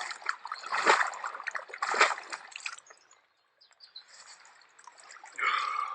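A big carp splashing in the water as it is released, with several splashes in the first few seconds, then quieter water sounds.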